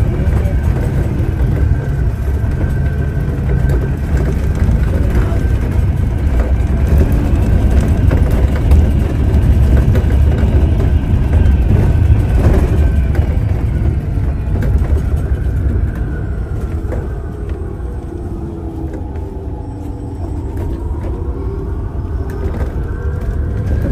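City bus heard from inside the cabin while it drives: steady engine and road rumble with a drivetrain whine. Past the middle the whine falls and the noise eases as the bus slows, then both rise again as it picks up speed near the end.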